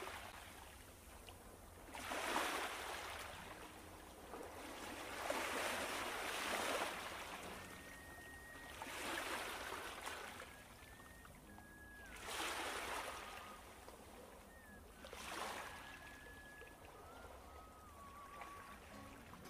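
Faint water sloshing and washing against the hull of a small outrigger boat. The surges of splash come every three to four seconds.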